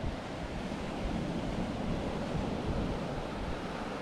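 Ocean surf breaking and washing up on a sandy beach, a steady rushing wash, with wind buffeting the microphone in low rumbles.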